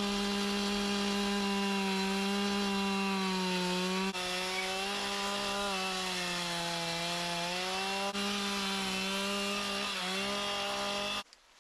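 Chainsaw running at high speed as it cuts into wood, to rough out the pointed top of a small tree carving. Its steady high pitch sags slightly under load a couple of times, and it stops abruptly near the end.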